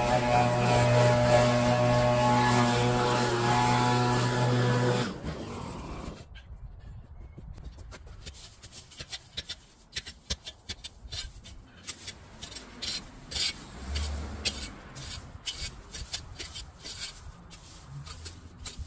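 A small motor of a garden power tool runs at a steady speed, then cuts off about five seconds in. After that come quieter, irregular scraping sounds with scattered clicks, like hand work in the garden.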